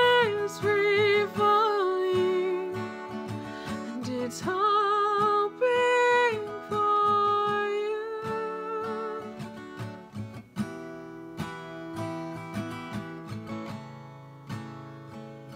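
A woman singing with her own acoustic guitar strumming, holding long notes with vibrato. About two-thirds of the way through the singing stops and the guitar carries on alone, getting quieter.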